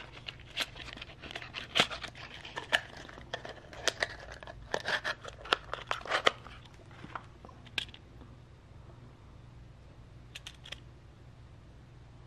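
Small cardboard box being worked open and a plastic lens cap pulled out of its insert by hand: a run of crinkling, scraping and clicking for about eight seconds, then a few light clicks near the end.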